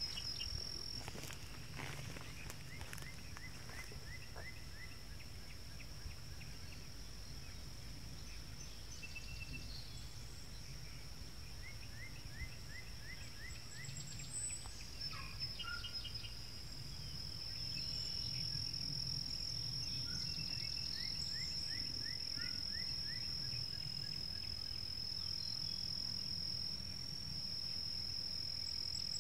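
A steady high-pitched insect trill runs throughout and grows louder a little past halfway. Over it a bird sings a short phrase of about six quick descending notes, three times, with a few scattered chirps and a low rumble underneath.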